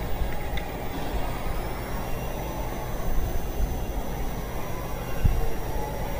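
Steady low rumble and hiss of background noise, with a faint high whine that rises about a second in and then holds.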